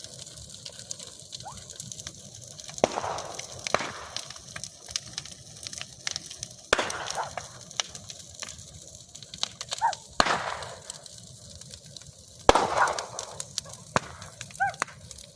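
Bonfire crackling, with irregular sharp pops and a few louder swells of noise.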